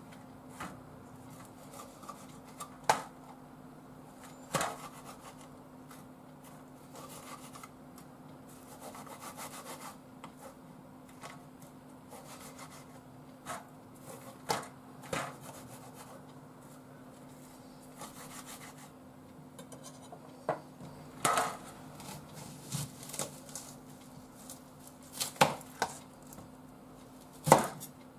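Kitchen knife chopping soaked seaweed on a cutting board: irregular single knocks of the blade against the board, some much louder than others. The last few cuts are into an onion. A faint steady hum runs underneath.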